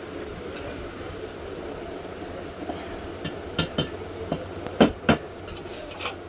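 Metal parts and tools clinking and knocking while an industrial sewing machine stand is assembled: about six sharp clinks in the second half, the two loudest close together about two-thirds of the way through.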